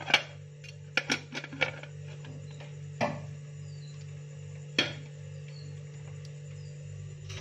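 Sharp knocks and clinks of dishes and containers being moved on refrigerator shelves. There is a cluster of them in the first couple of seconds, then single knocks about three and about five seconds in, all over a steady low hum.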